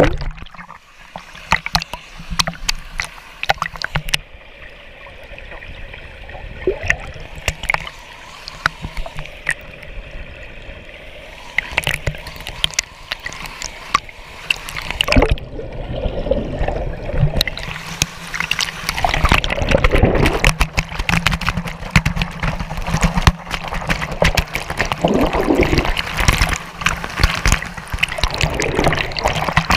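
Pool water splashing and gurgling up close, with many sharp splash clicks. From about eighteen seconds in, a louder rushing of falling water from the pool's waterfall takes over.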